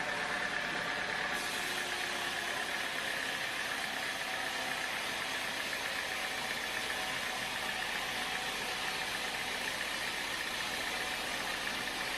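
Sawmill machinery running steadily, with a constant mechanical noise and a high steady whine.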